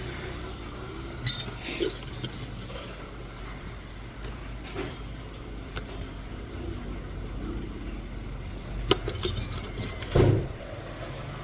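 Metal nail instruments clinking and tapping against each other or a tray, with sharp clinks about a second in, again at two seconds, and twice near the end, over a low steady hum.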